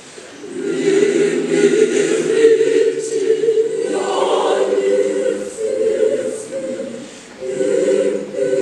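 Mixed school choir of boys and girls singing sustained chords in long phrases. A new phrase begins about half a second in, and there is a brief break near the end before the next phrase.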